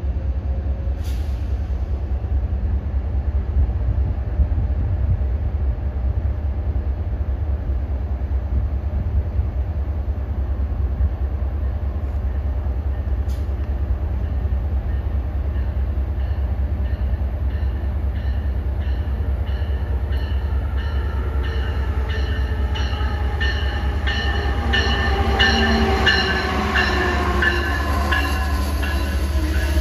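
Amtrak train hauled by an electric locomotive approaching and coming alongside, its rumble building over the last several seconds. Regular rhythmic ticking from the wheels grows louder, and a whine falls in pitch near the end as the train comes in.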